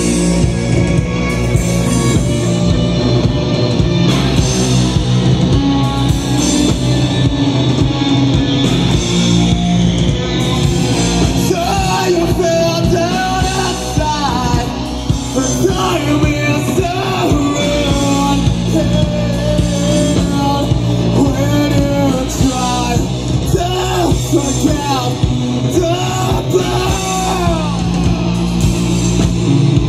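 Live rock band playing loudly, with electric guitar and bass guitar, and a singer's voice coming in about twelve seconds in.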